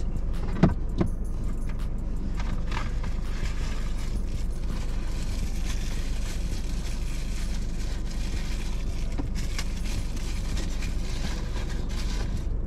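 Steady low hum inside a car's cabin, with rustling and small rattles of takeout food packaging being handled. Two sharp clicks come about half a second and a second in.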